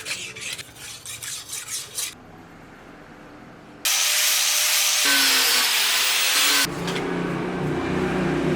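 Workshop metalworking sounds in short cut-together pieces: quick rhythmic scraping strokes, several a second, then a loud steady hiss for a few seconds, then a steady low hum.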